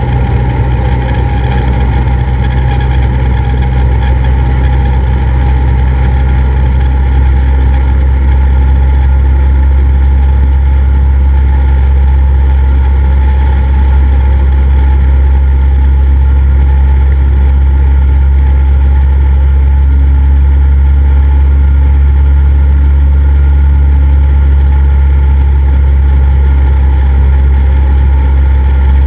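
Cessna 172's piston engine and propeller running with a steady, unchanging drone.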